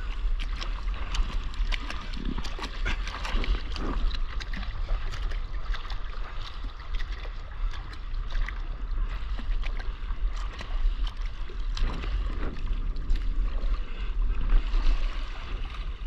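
Sea water splashing and lapping around a stand-up paddleboard as it is paddled over small chop, with many small splashes and a steady wind rumble on the microphone.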